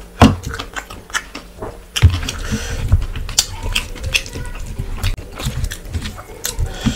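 Close-up eating sounds: wet chewing and lip smacks with irregular sharp clicks, and squelching as rice and curry are mixed by hand on a steel plate. A sharp smack comes just after the start.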